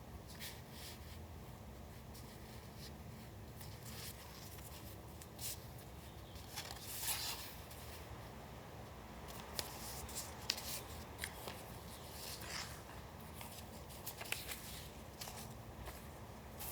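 Paper being handled for collage: faint scattered rustles, taps and crinkles of paper pieces being moved and placed, with a longer rustle of paper about seven seconds in and a run of small sharp ticks in the second half.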